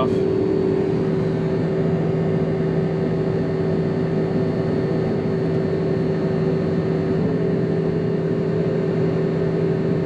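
Case self-propelled windrower running steadily, heard from inside its cab as an even engine drone with a steady low hum.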